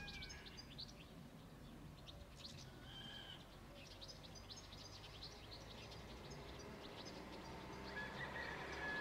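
Small birds chirping and twittering, faint. Near the end the low rumble of an approaching train grows louder, and a steady high tone comes in about a second before the end.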